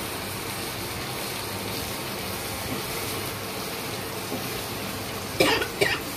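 Mushroom curry simmering and sizzling in a non-stick wok, a steady hiss as sliced button mushrooms go in and are stirred. Near the end come two short, loud sounds about half a second apart.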